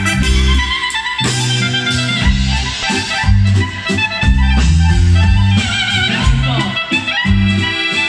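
Live band music: accordion and clarinet over keyboard and drums, with a moving bass line.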